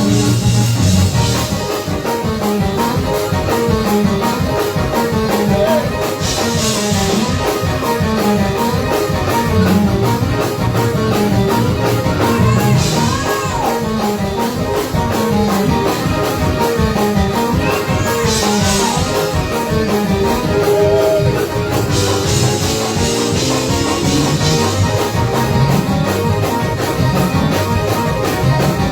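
Live band playing fast instrumental praise-break music, with a quick, steady drum beat under a moving bass line.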